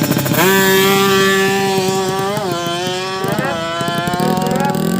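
A small-capacity drag-racing motorcycle engine revving up and held at high revs. Its pitch dips about two seconds in and rises and falls again a second later.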